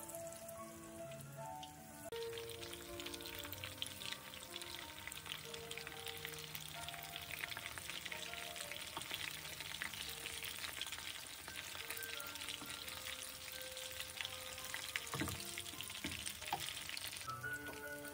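Breaded chicken pieces shallow-frying in hot oil in a pan: a dense crackling sizzle that starts about two seconds in and drops away shortly before the end, with a couple of light knocks near the end.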